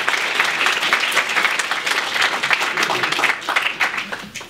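Audience applauding, dying away over the last second or so.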